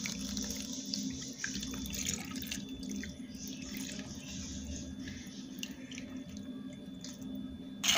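Dissolved tequesquite water poured from a plastic bowl into a pot of water holding corn cobs, trickling and splashing. It is stronger for the first couple of seconds, then thins to a fainter trickle.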